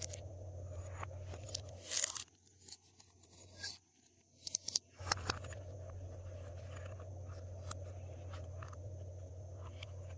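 Glossy slime being worked by hand, giving scattered sticky clicks and crackles over a steady low hum. The hum cuts out for a few seconds in the middle.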